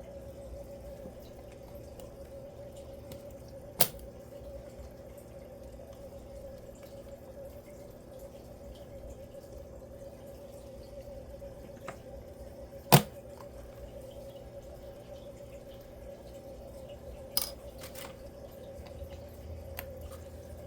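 A few isolated sharp plastic clicks from keyboard keycaps being handled and fitted, three in all, the loudest near the middle, over a steady hum.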